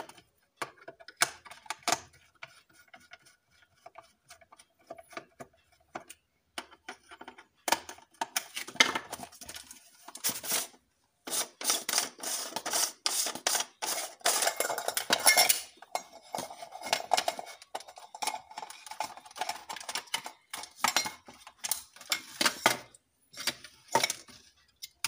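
Hard plastic clicks, rattles and scrapes as a plastic LED torch is taken apart by hand. A screwdriver works at the screws with sparse clicks at first; then the casing and head ring are handled and pulled apart in a denser, louder clatter, with a longer scrape a little past the middle.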